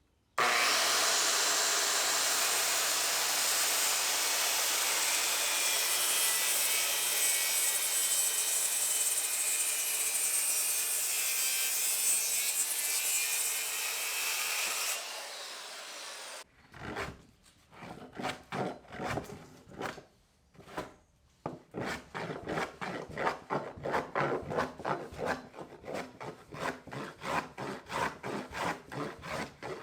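A power tool works the sinker cypress wood with a loud, steady noise for about fifteen seconds, then winds down and stops. After that a hand tool rubs back and forth on the wood in even strokes, about three a second.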